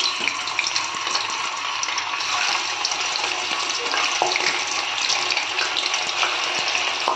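Paneer cubes sizzling in hot oil in a kadhai as they fry: a steady hiss with many small crackles.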